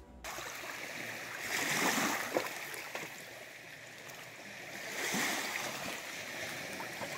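Small waves of Lake Superior washing onto the shore. The wash swells twice, about three seconds apart.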